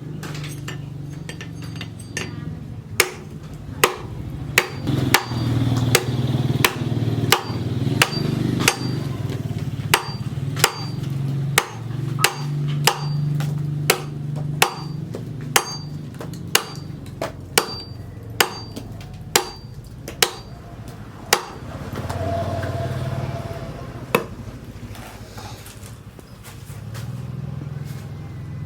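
Hammer blows on metal in a steady rhythm, a little under two blows a second, each with a short metallic ring. The run stops about three quarters of the way through, followed by one more blow a few seconds later. A steady low hum runs underneath.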